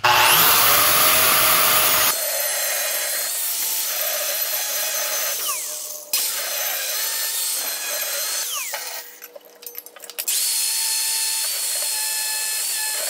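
Angle grinder with a thin cut-off wheel cutting through steel plate: a steady high whine over a rasping hiss. The sound drops away briefly about nine seconds in, then the cutting picks up again.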